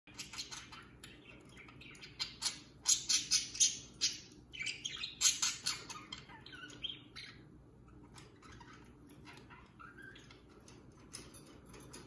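Budgerigars chirping and chattering: a rapid run of short, high calls, busiest and loudest in the first half, thinning to scattered chirps after about seven seconds.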